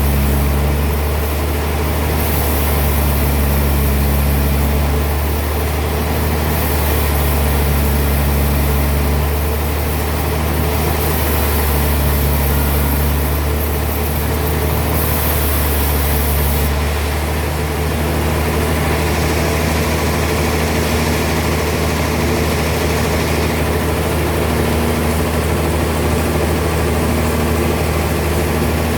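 Heavy sawmill machinery running steadily with a deep engine-like hum. The upper tones rise and fall every couple of seconds, then settle to a steadier run about two-thirds of the way through.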